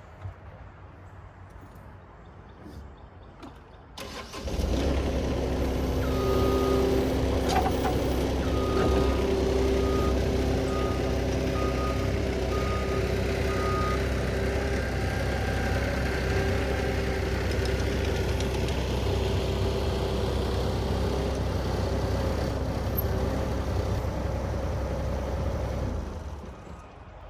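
Skid steer engine starting about four seconds in and then running steadily with a deep hum. A string of short, evenly spaced warning beeps sounds a few seconds after it starts, and the engine sound drops away shortly before the end.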